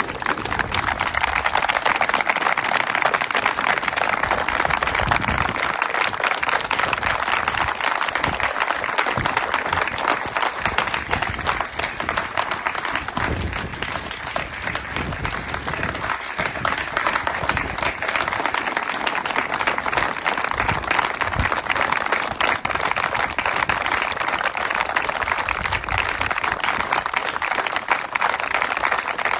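Sustained, steady applause from the teams and spectators clapping together: a minute's applause.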